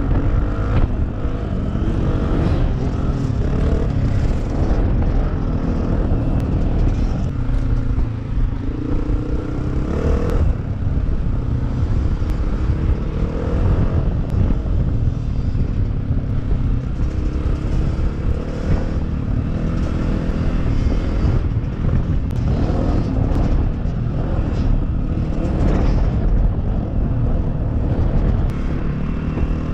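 Dirt bike engine running under way, heard from a camera mounted on the bike, its pitch rising and falling as the rider works the throttle.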